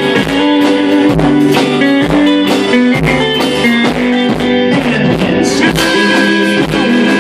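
Live rock band playing an instrumental passage: electric guitars and bass over a drum kit, with a steady kick-drum beat about once a second and no singing.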